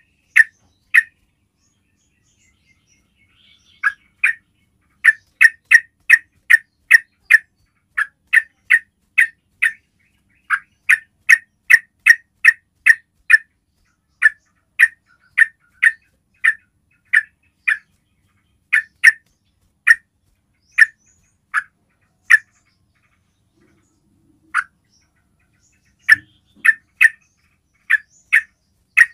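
Yellow-vented bulbul (trucuk) giving a long series of short, sharp call notes, about two a second, in runs broken by brief pauses and thinning out near the end.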